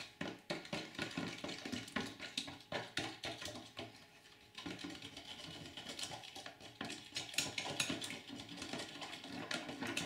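Spoons scraping and clicking against a plastic container as glue and water are stirred together, with a short pause about four seconds in.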